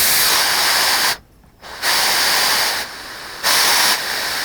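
Compressed air hissing from the scroll saw's dust-blower nozzle through a hand air valve. It cuts off about a second in, comes back, then weakens and strengthens as the valve is turned to adjust the flow.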